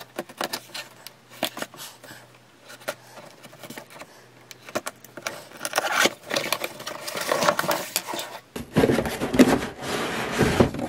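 Cardboard box being opened by hand: small scratches and taps as the packing tape is cut, then cardboard rubbing and sliding as the box is opened and its moulded pulp tray is pulled out, loudest near the end.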